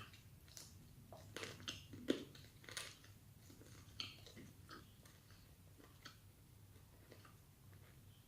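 A person chewing food close to the microphone, with faint wet mouth clicks and small crunches, busiest in the first three seconds and loudest about two seconds in.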